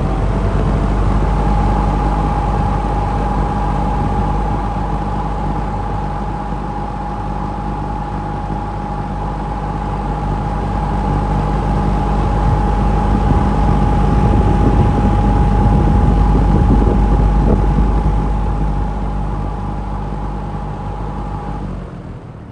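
Lakewood P25 metal-blade box fan running on high with the microphone close to the motor: a steady rush of air chopped by the metal blades over a low motor hum, with a thin steady whine above it. The sound drops away near the end.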